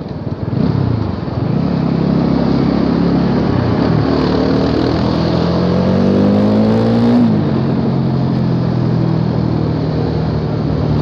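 Bajaj Dominar 400's single-cylinder engine pulling hard under acceleration from the rider's position, its pitch climbing for several seconds with a brief dip partway as it shifts gear. About seven seconds in it drops and settles into a steady lower drone as the throttle eases, over steady wind and road rush.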